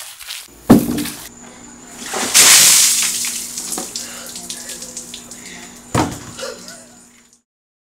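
A bucket of ice water splashing down over a person, loudest about two and a half seconds in and then trailing off. Sharp hits come about a second in and again near six seconds, and the sound cuts off suddenly near the end.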